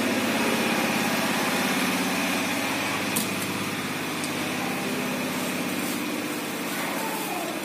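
A small engine running steadily at idle, a constant low drone with a slight waver, and a faint click about three seconds in.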